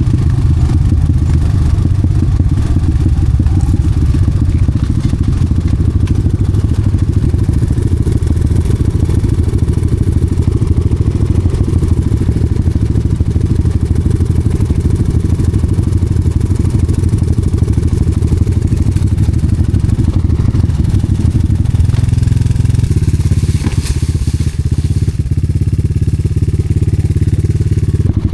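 Enduro motorcycle engine running steadily under the rider, its note dropping back a little about three-quarters of the way through.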